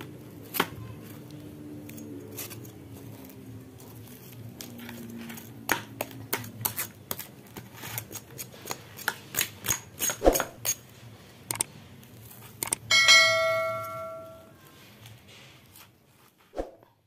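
A knife blade scraping a cow's foot clean, a quick run of sharp scrapes and taps. Near the end, a bell chime rings for about a second and a half, then fades.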